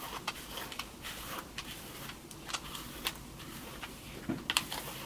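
Faint, scattered soft clicks and rustles of hands scrunching and handling wet, wavy hair.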